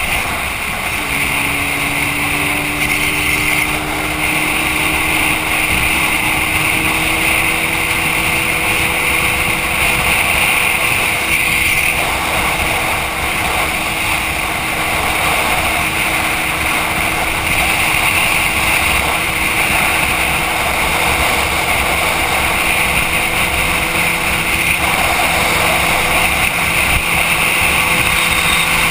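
Sport motorcycle's engine running at a steady highway cruise, its pitch climbing a little in the first ten seconds and then holding, with steady wind rush over the bike-mounted microphone.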